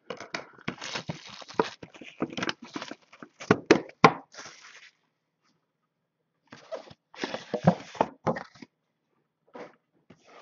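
Handling noise as a trading-card box and cards are moved about: irregular scrapes, knocks and rustles, pausing for about a second and a half midway before another run of knocks.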